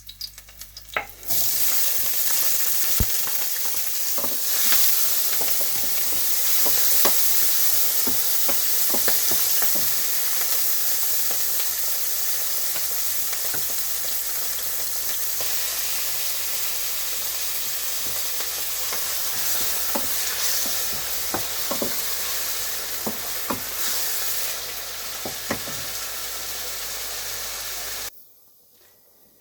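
Food frying in hot oil in a pan, sizzling steadily, with the clicks and scrapes of a utensil stirring it. The sizzle starts about a second in and stops suddenly near the end.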